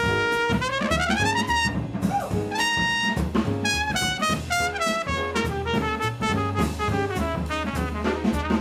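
Trumpet playing a jazz solo, with a smeared upward glide about half a second in, over an upright bass and drums.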